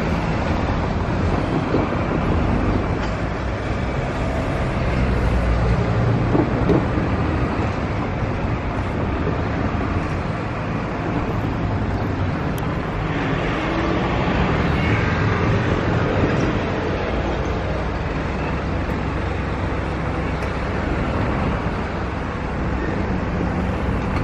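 Matsuyama city tram running over the rail crossing and points, its wheels knocking a few times on the rail gaps in the first seven seconds, over a steady rumble of traffic.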